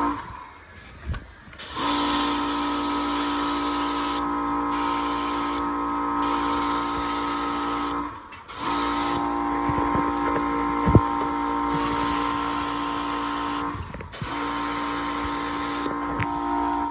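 Electric high-pressure washer used for air-conditioner cleaning: the pump motor hums steadily while the water spray hisses, the spray cutting in and out several times as the trigger is worked, with a few brief stops.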